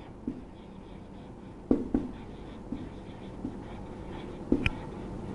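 Marker pen writing on a whiteboard: faint scratchy strokes with a few sharp taps of the tip on the board, about two seconds in and again near the end.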